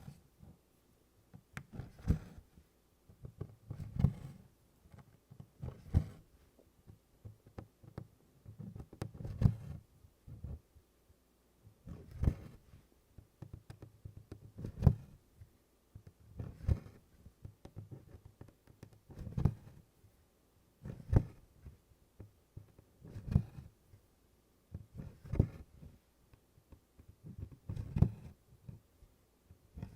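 Needle and DMC floss drawn through taut 24-count canvas, tent stitching at a steady pace of about one stitch every two seconds. Each stitch makes a soft thump from the stretched fabric with a brief rasp of thread.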